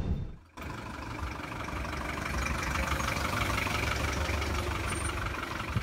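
Engine of a vintage American car running steadily at idle, heard close up, after a brief silence at the start.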